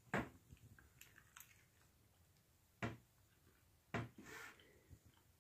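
Quiet room with three short soft knocks, at the start and about three and four seconds in, from a small plate and food being handled with fingers on a wooden table, with a brief rustle after the last knock.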